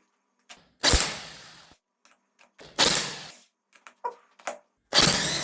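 Biltema 800 W corded electric impact wrench given three short trigger bursts on a stuck nut, each one fading out as the motor winds down. The last burst is the longest. Light clicks of the socket being handled come in between.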